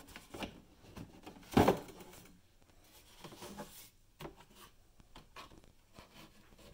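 Blow-molded plastic chainsaw carrying case being handled and opened: scattered plastic knocks and rubs, the loudest a single sharp knock about one and a half seconds in.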